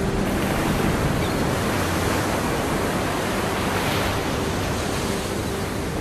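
Large ocean waves breaking: a steady, full rush of surf with a slight swell about four seconds in.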